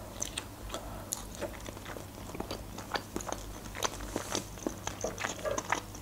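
A person chewing a piece of sausage with the mouth closed, close to the microphone: a steady run of many small mouth clicks.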